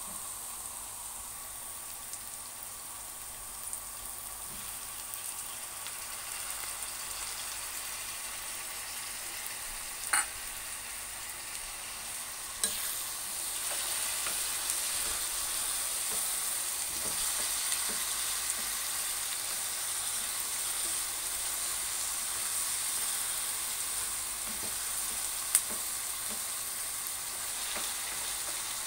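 Diced onions, chilli peppers and tomatoes sizzling in oil in a non-stick frying pan while being stirred with a spatula, with a few sharp taps of the spatula against the pan. The sizzle gets a little louder about halfway through.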